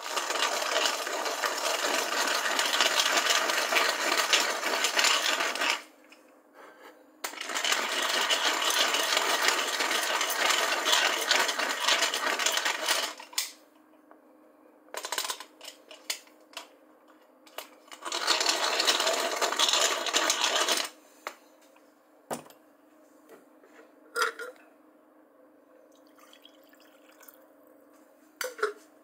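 Coffee grinder grinding whole coffee beans in three bursts, the first two about six seconds each and the last about three, each starting and stopping abruptly, followed by a few light clicks and taps.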